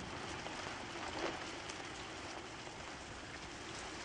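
Steady rain falling, heard from inside a taxi cab, with a faint tap about a second in.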